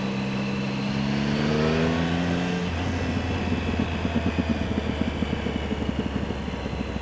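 2008 Triumph Speed Triple's 1050 cc three-cylinder engine revving up as the bike accelerates, its note climbing for nearly three seconds. The revs then drop abruptly and the engine runs on at lower revs with an uneven, fluttering level.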